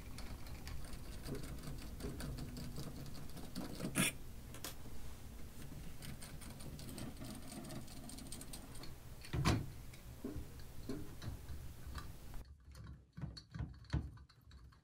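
Faint ticking and clicking of a screwdriver backing out the screws of a shower valve's chrome trim plate, with two louder knocks and a run of small clicks near the end as the plate is taken hold of.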